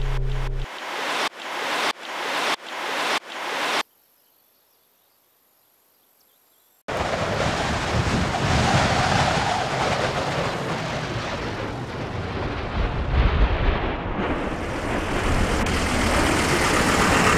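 Five swelling whooshes about two-thirds of a second apart, each building up and cutting off sharply. Then about three seconds of near silence, then a loud, dense rumbling noise.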